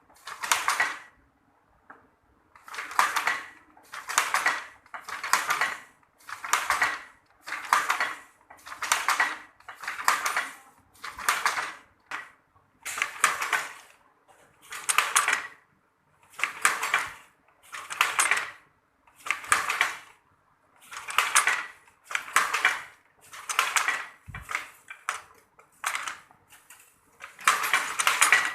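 Traditional hand-operated weaving loom making sarong cloth, clacking in an even working rhythm of about one stroke a second as the shuttle is thrown and the beater packs the weft, with a short pause about a second in.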